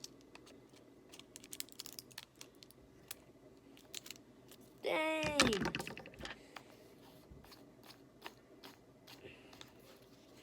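Irregular light clicks and taps as a folding fishing rod and its parts are handled and fitted together.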